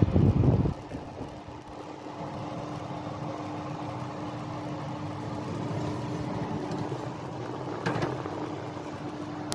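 Electric oven's fan running with a steady hum and a faint steady tone. A loud low bump at the start, and a short metallic clatter about eight seconds in as the baking tray is pushed onto the oven rack.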